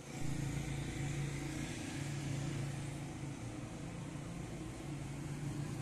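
A steady low engine hum over street noise.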